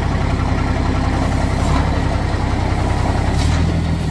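Mitsubishi Fuso dump truck's diesel engine running steadily as the tipper body is raised, with a thin steady turbo whistle over the engine drone. The engine note changes about three and a half seconds in.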